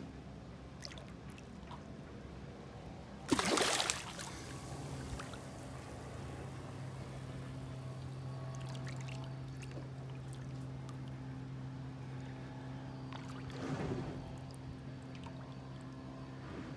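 Water splashing as tarpon swirl at the surface below the dock: one loud splash about three seconds in and a smaller one near fourteen seconds, over a steady low motor hum.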